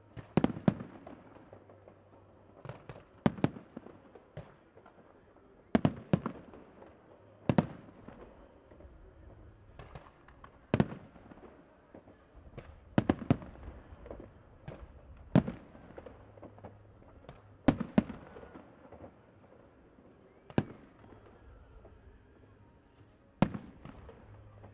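Aerial fireworks shells bursting: about twenty sharp bangs at uneven intervals, some in quick pairs or triplets and others a couple of seconds apart, each trailing off in a short echo.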